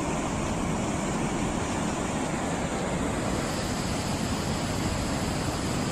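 Floodwater of the swollen Garonne river rushing steadily, a dense churning wash of turbulent water pouring past debris and over a weir.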